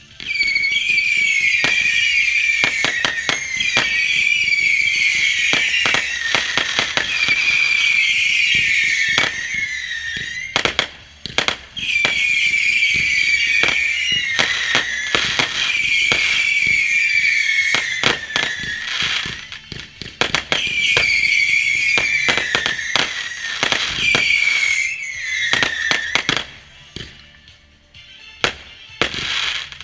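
Whistling fireworks: a rapid run of shrill whistles, each falling slightly in pitch and lasting a second or two, over many sharp crackling pops and bangs. The whistles break off twice, and only scattered pops are left near the end.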